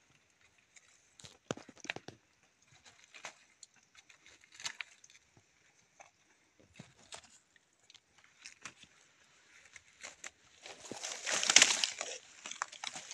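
Rustling and crackling in dry leaves and brush: scattered short snaps and crackles, then a louder rustle lasting about a second and a half near the end.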